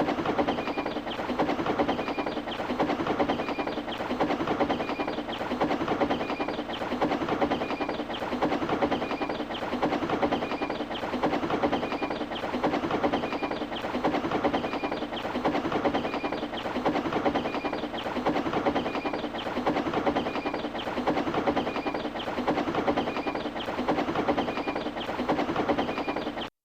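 Steam locomotive puffing sound effect running fast: rapid, even chuffs that swell and fade about every two seconds, cutting off suddenly at the very end.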